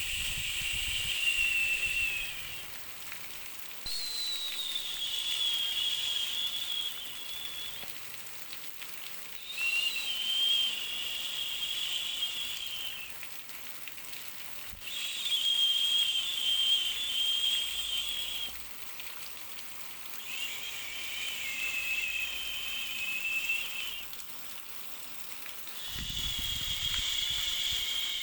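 Repeated hissing sounds from a baby-soothing noise track, each lasting three to four seconds with short gaps between, each carrying a faint whistling tone.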